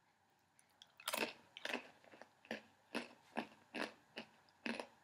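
Crunchy pretzels, dipped in hummus, being chewed close to the microphone: a run of about eight or nine sharp crunches, roughly two a second, starting about a second in.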